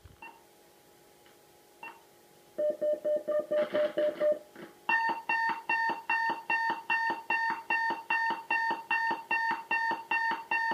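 WB1401 warning broadcast receiver's loudspeaker sounding electronic beep tones. A faint confidence tick or two comes first, then a quick run of lower beeps from about two and a half seconds in, then a steady train of higher-pitched beeps, about three a second, from about halfway through.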